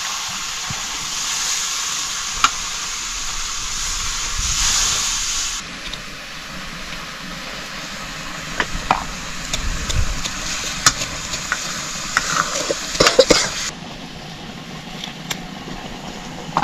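Food sizzling in a hot pan while it is stirred, the spoon scraping and knocking against the pan. The sizzle is louder for the first five seconds or so, and the knocks come thicker in the second half.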